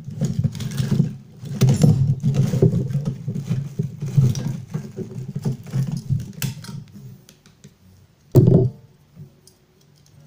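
Irregular clatter and scraping of metal parts being handled on a workbench, ending in one loud knock a little past eight seconds in, after which it mostly stops.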